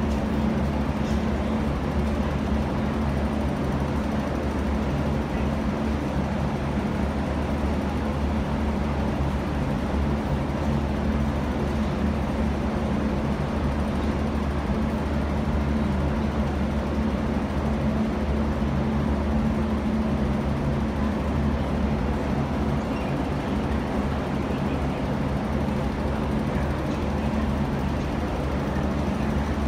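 Steady low mechanical hum of an underground metro station's machinery and ventilation, an even drone with a few fixed low tones that doesn't change.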